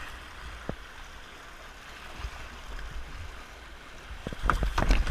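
River water rushing over a shallow rocky riffle and past a kayak's hull, a steady wash. Near the end, a few sharp splashes or knocks come in, louder than the flow.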